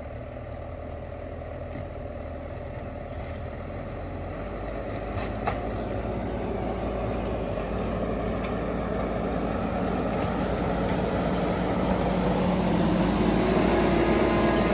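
Diesel engine of heavy earthmoving machinery running steadily and growing gradually louder, with one sharp knock about five and a half seconds in.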